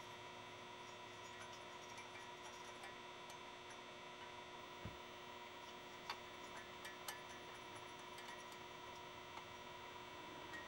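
Faint steady electrical hum, with a few light clicks in the second half as an aluminium cylinder head is handled and seated on a moped engine's cylinder.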